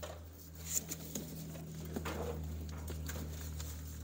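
Hands rummaging through papers and boxes on a cluttered workbench: paper rustling and light knocks, with a sharp tap about three-quarters of a second in, over a steady low hum.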